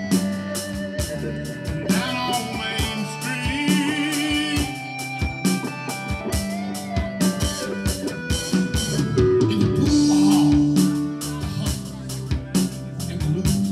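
Live band playing electric guitars over a drum kit with a steady beat, the guitar notes sustained and bent.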